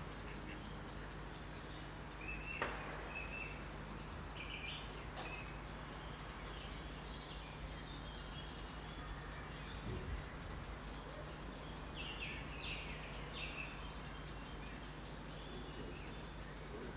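Crickets chirping in a steady, rapid high-pitched pulse, with brief bird chirps now and then. About two and a half seconds in comes one sharp crack, a distant small-calibre rifle shot from the shooting range.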